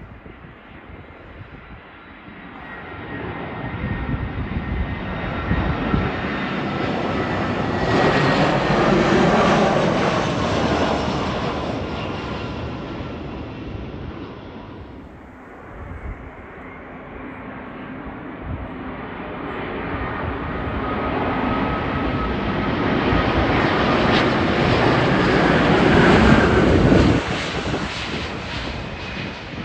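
Two airliners on landing approach pass low overhead one after the other. First an Airbus A320 with CFM56 engines: its jet noise swells, peaks about ten seconds in with a whine that drops in pitch as it goes by, and fades. Then an Airbus A350-1000 with Rolls-Royce Trent XWB engines grows louder, peaks near the end and drops off suddenly.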